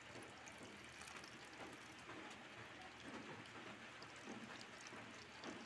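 Faint, steady splashing of a stream of water pouring into a plastic basin of water.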